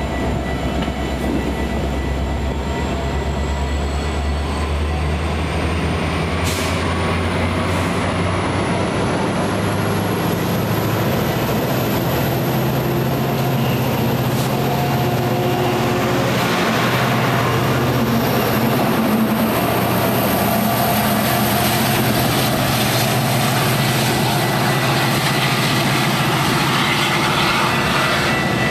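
Diesel-hauled train passing close by: a steady locomotive engine drone over the rumble of the rolling train, with the engine's low note stepping up about ten seconds in.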